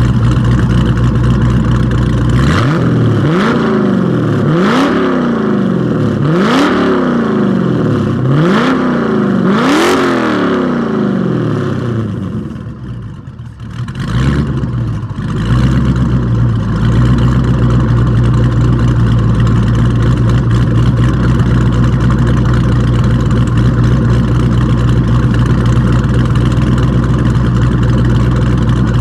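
Exhaust of a 2009 Dodge Challenger SRT8's 6.1 Hemi V8, fitted with an Inertia SRT Max Plus cam, catless midpipes, a resonator delete and stock mufflers. It idles, then is revved five times in quick blips, each rising and falling back. About twelve seconds in it dips briefly quieter, then settles back into a steady idle.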